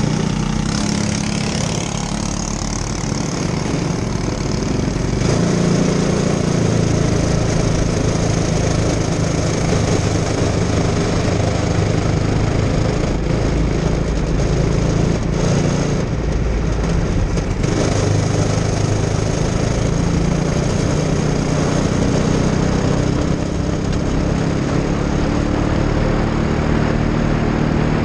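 Single-cylinder four-stroke Briggs & Stratton LO206 kart engine idling, then picking up about five seconds in as the kart pulls away, and running on with its pitch rising and falling through the corners.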